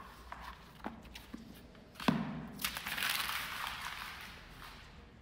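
Objects being handled on a concrete tabletop: a few light taps, then a sharp knock about two seconds in as a book is set down, followed by a paper rustle for a second or so that fades away.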